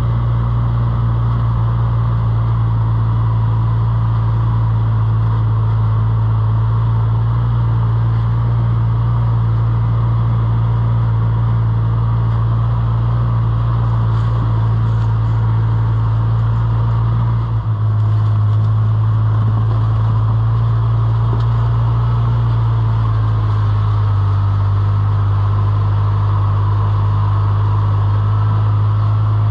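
A vehicle's engine and running noise drone steadily, with a low hum that shifts pitch slightly a couple of times, as when heard from inside the moving vehicle.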